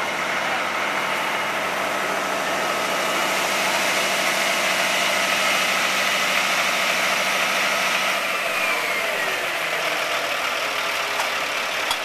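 Fire department ladder truck's diesel engine idling steadily, with a faint falling whine about eight seconds in.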